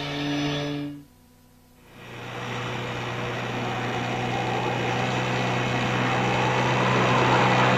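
A held musical tone ends about a second in, and after a short silence an outboard motor on a small open boat fades in, running as a steady hum that grows slowly louder.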